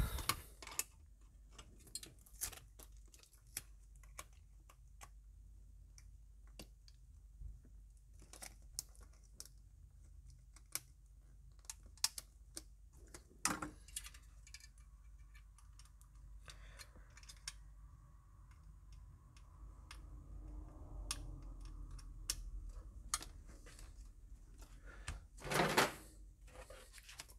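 Scattered light clicks and taps of hands handling the monitor's sheet-metal shield and flat ribbon cable connectors, with a louder knock about 13 seconds in and another near the end.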